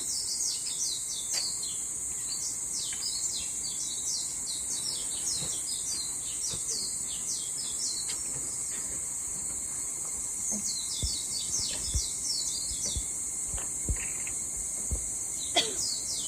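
Small birds chirping in quick runs of short falling calls over a steady high insect buzz, with a pause in the calling midway. A few soft low thumps come in the last few seconds.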